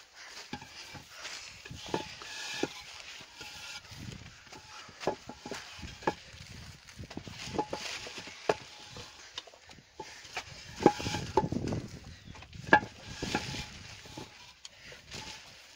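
Heavy white masonry blocks being handled and stacked: irregular sharp knocks and scrapes of block against block as they are lifted off and set down on the pallet stacks.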